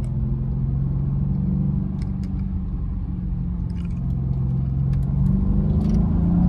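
Car engine and road rumble heard from inside the cabin while driving, the engine note steady and rising a little near the end.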